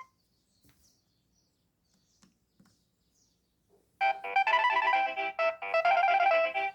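Nokia 6560 mobile phone ringtones: the last beep of one tone cuts off at the start, followed by a few seconds of near silence with a few faint clicks. About four seconds in, the next ringtone starts, a loud multi-note electronic melody with a quick rhythm.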